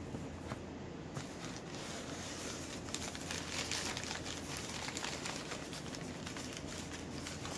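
Wrapping crinkling and rustling with many small clicks as an item is unwrapped and handled by hand, busiest in the middle.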